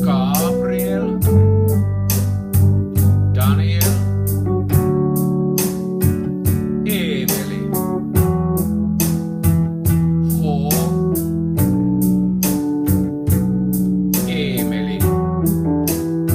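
Pop backing track with organ-like keyboard chords and a steady beat, with a bass line of long held notes played on the low strings of a guitar (D, B, G and E).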